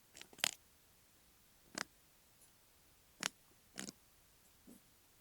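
Knee joint cracking and clicking as a chiropractor works it by hand in a knee adjustment: a quick few clicks near the start, then single sharp clicks about a second apart, the last one duller. This is crepitus that the practitioner puts down to worn-away knee cartilage.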